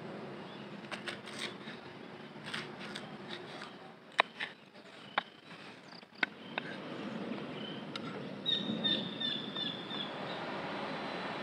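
A folding knife slicing a red chili on a small wooden board: a scattered series of sharp taps and clicks through the first six or seven seconds. Near the end, a quick run of short high chirps.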